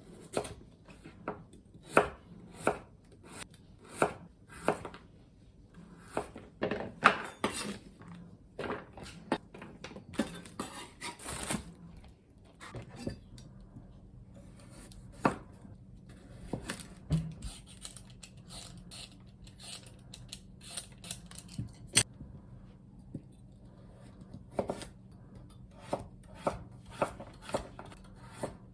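Kitchen knife chopping food on a cutting board: irregular knocks, spaced out at first, then in quicker runs in the middle and again near the end.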